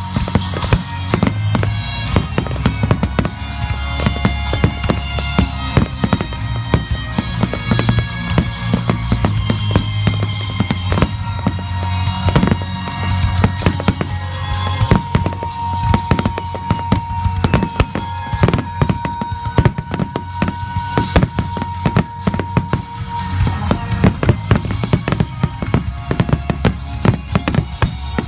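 A fireworks finale: many aerial shells bursting in quick succession without a break, heard over music played with the show.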